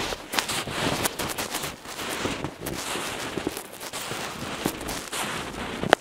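Footsteps crunching and creaking in deep snow on a plank footbridge, a dense irregular crackle of compacting snow, with a sharp click near the end.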